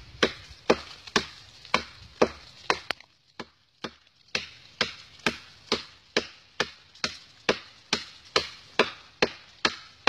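Parang (machete) chopping into the rotten wood of a dead coconut palm trunk, with sharp strikes about twice a second and a brief pause about three seconds in.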